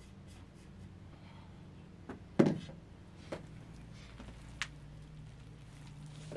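A few sharp knocks and clicks over a faint low hum, the loudest a single heavy knock about two and a half seconds in that rings on briefly.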